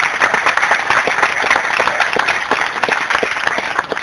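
A small crowd applauding with dense, steady hand-clapping.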